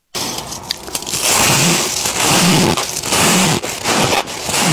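Freezer frost being bitten and chewed close to the microphone: a loud, dense crunching crackle that comes in surges about once a second.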